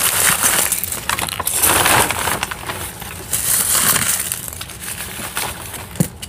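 Close rustling of fleece blankets being pushed and handled right against the phone's microphone, loud and irregular, with a couple of small knocks near the end.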